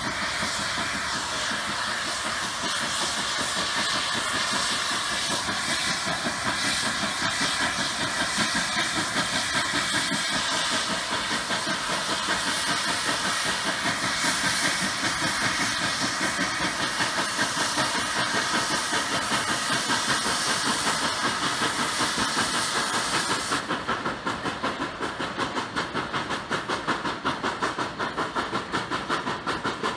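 Narrow-gauge K-28 class 2-8-2 steam locomotive No. 476 working a train, its exhaust beating rapidly and evenly under a loud, steady hiss of steam. The hiss cuts off about 24 seconds in, leaving the quick chuffing on its own.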